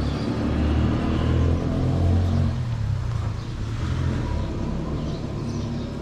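A low, steady motor-vehicle engine rumble.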